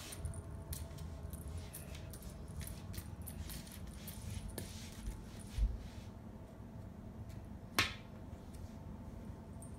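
Light rustling and tapping of a feather-wand cat toy swished over a wooden floor, with a low thump about halfway through and one sharp click near the end.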